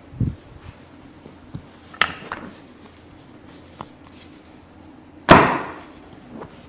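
Chiropractic adjustment on a treatment table: a soft thud just after the start, a sharp click about two seconds in, then a loud thump with a short fading tail a little past five seconds.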